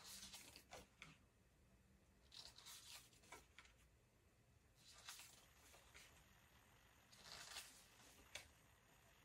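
Tarot cards being slid off a deck and laid one at a time onto a face-up pile: faint papery swishes and light taps, a card about every two and a half seconds.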